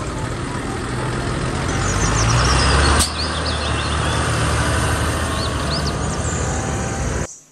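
Large Fendt tractor's diesel engine running as it drives, the engine note building to its loudest about three seconds in, where there is one sharp click, then running steadily until it cuts off just before the end.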